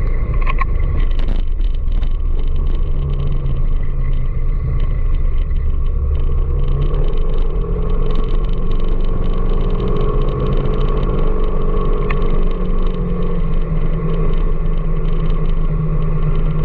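Steady road-traffic and engine rumble heard while riding through city streets, with the engine tones shifting in pitch as the speed changes.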